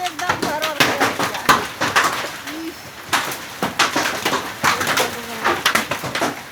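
Hailstones striking hard surfaces: a dense, irregular patter of sharp clicks and knocks.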